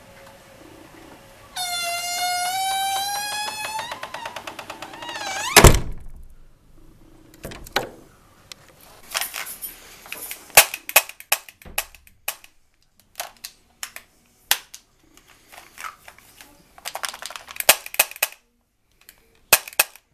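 A run of sound effects. First a high pitched tone is held for about two seconds, then wavers and slides down. A heavy thud follows, then scattered clicks, knocks and short rustling bursts.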